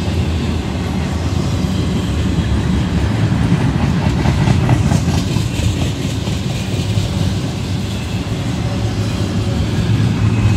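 Norfolk Southern double-stack intermodal train's container cars rolling past: a steady, loud rumble of steel wheels on the rails.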